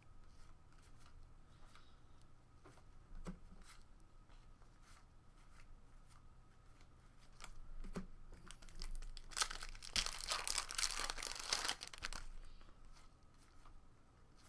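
A trading-card pack wrapper being torn open and crinkled, loudest for about four seconds in the second half, with light clicks and rustles of cards being handled around it.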